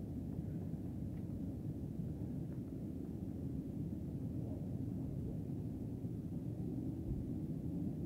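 Steady low outdoor rumble, with a few faint short high chirps about one and two and a half seconds in.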